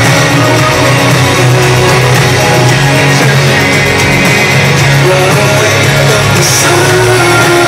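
Live rock band playing loudly, electric guitar to the fore.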